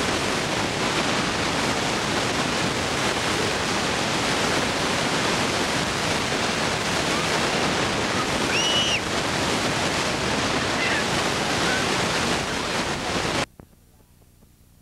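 Wind buffeting a camcorder microphone outdoors: a loud, steady rushing, with a few faint high squeaks about nine seconds in. It cuts off suddenly near the end, leaving only a faint hiss as the recording gives way to blank tape.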